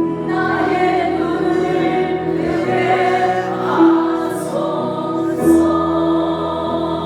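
Choir singing a Christian worship song over sustained accompaniment, with long held notes.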